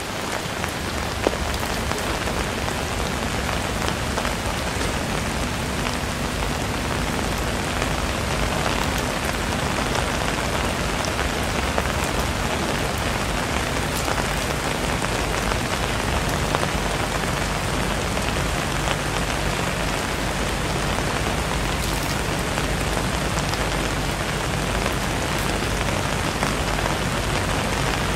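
Steady rain falling and splashing on hard surfaces, with scattered sharper drop taps over a low steady rumble.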